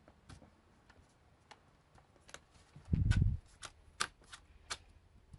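Scattered sharp clicks and ticks of a Lenovo Yoga 910 laptop's bottom cover being pried off by hand, its clips snapping loose. A dull low thump about three seconds in.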